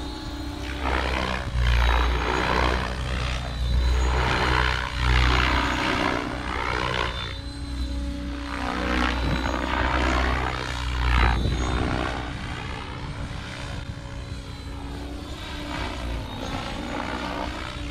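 Blade 700X electric RC helicopter in flight: the whoosh of its rotor blades and the whine of its electric motor, sweeping up and down in pitch as it makes passes. It is louder in the first part and fades somewhat over the last few seconds.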